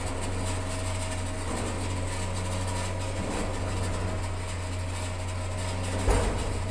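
Steady mechanical hum of a Switch-N-Go electric hoist and winch paying out as it lowers a roll-off drop box, over a constant low rumble, with a brief low bump near the end.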